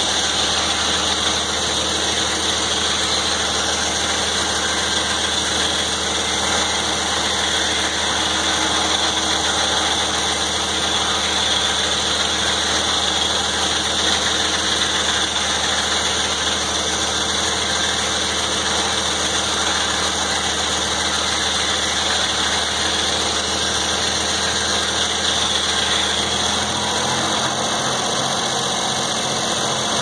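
Antique circular sawmill running: its power unit and large circular blade make a steady, loud mechanical din as the carriage feeds a log through the saw. Near the end the low hum drops away and a low pulsing takes its place.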